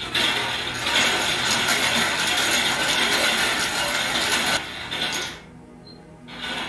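Bingo balls tumbling and rattling in a hand-cranked wire bingo cage as it is spun to draw a winner. The clatter runs for about four and a half seconds, then stops.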